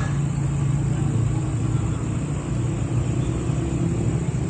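Steady low hum of a running motor vehicle with road rumble.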